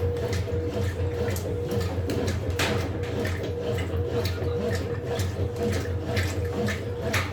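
Brastemp Total 7 kg washing machine running through its wash, a steady motor hum and whine under irregular splashing and sloshing of water in the drum.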